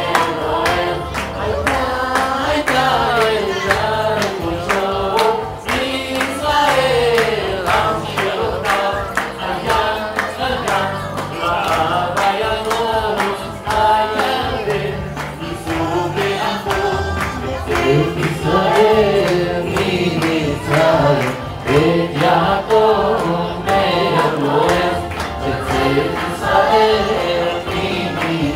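A song with group singing over a steady, repeating bass beat.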